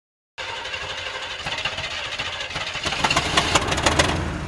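Diesel engine of a Caterpillar 907H2 wheel loader running, growing louder with a rapid clatter about three seconds in.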